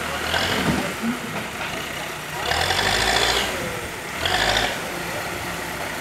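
Heavy diesel engine idling steadily, swelling louder three times: briefly just after the start, for about a second around the middle, and again near the end.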